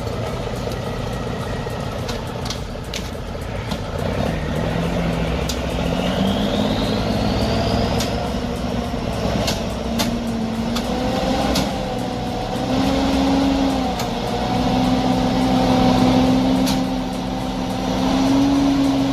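Logging truck's engine running under load, its pitch climbing in several steps, with a few sharp knocks or clanks scattered through.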